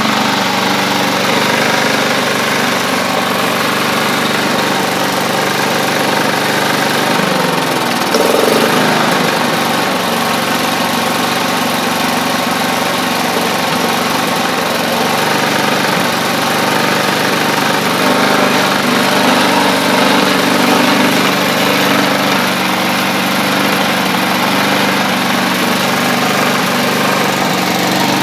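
Briggs & Stratton four-stroke engine on a Hayter Hayterette rotary mower running steadily just after starting. Its speed shifts briefly about seven seconds in, then steadies. It is burning off oil spilled when the mower was tipped over, and is starting to run okay.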